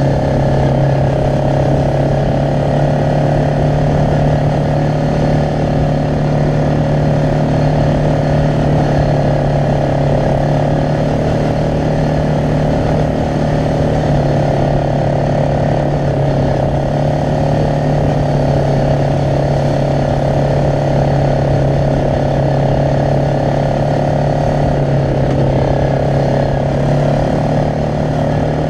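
Yamaha Grizzly 600 ATV's single-cylinder four-stroke engine running steadily at trail-cruising speed, heard from the rider's seat, with a rough low rumble beneath it.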